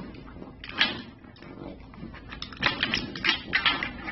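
Plastic dog puzzle feeder knocking and clattering on a tile floor as a pug noses at its lids for treats: one knock about a second in, then a quick run of clicks and knocks near the end.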